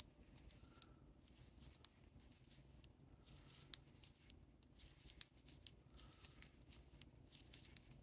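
Faint, irregular clicks of metal knitting needles, with light yarn rubbing, as stitches are purled by hand.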